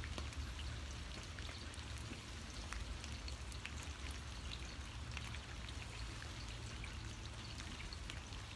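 Steady rain falling, with many single drops ticking sharply, over a steady low rumble.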